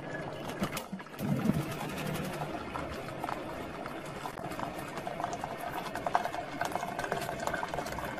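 Just-boiled water poured in a steady stream from a kettle into an amber glass pot on a gas burner, splashing and bubbling with many small crackles.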